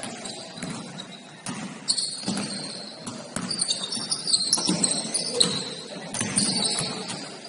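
A basketball bouncing on a gym floor during play, irregular thuds every half second or so, mixed with short high squeaks.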